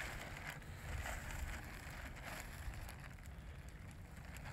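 Wind rumbling on the microphone, with soft rustling and scattered light ticks.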